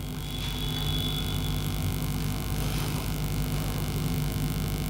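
Steady low electrical hum, with the faint scrubbing of a duster wiping a whiteboard clean.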